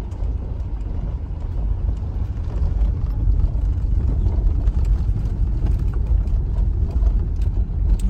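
Car driving along an unpaved road, heard from inside the cabin: a steady low rumble of engine and tyres with scattered light ticks, growing a little louder about three seconds in.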